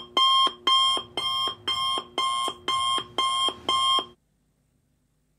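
Electronic alarm beeping: a fast run of identical beeps, about two a second, that stops abruptly about four seconds in.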